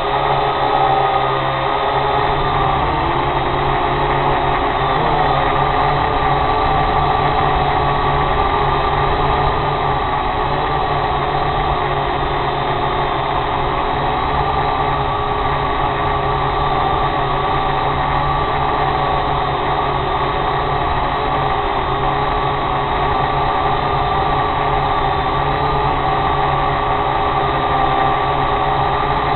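Small drone's motors and propellers whining steadily, heard close up from its own onboard camera, several held tones that briefly shift in pitch a few seconds in.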